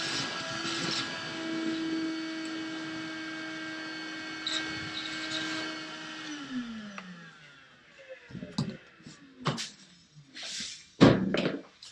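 Craftsman wet/dry shop vacuum running with a steady motor whine while it sucks up debris from a freshly drilled hole. About six seconds in it is switched off, and the motor spins down with a falling pitch. Several knocks and clatters follow.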